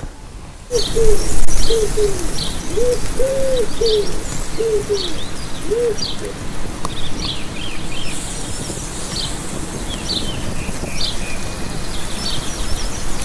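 A pigeon cooing in a run of short hoots through the first half, while small birds chirp throughout.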